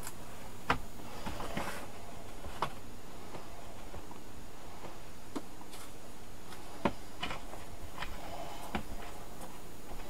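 Screwdriver prying around the edge of a laptop's plastic base panel: a few scattered sharp plastic clicks with short scraping in between, as the snap-in clips of the cover are worked loose.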